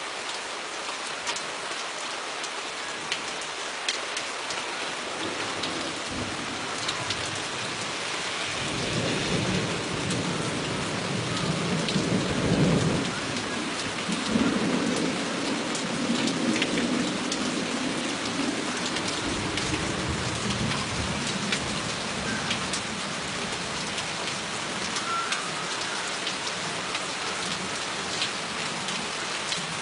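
Steady rain with drops ticking on surfaces, and a long roll of thunder that builds about a third of the way in, peaks near the middle and rumbles on for several seconds before fading back under the rain.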